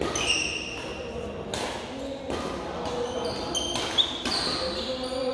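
Badminton doubles rally on an indoor court: racket strikes on the shuttlecock and sneakers squeaking on the court floor, ringing in the large hall. A sharp smack about four seconds in is the loudest sound.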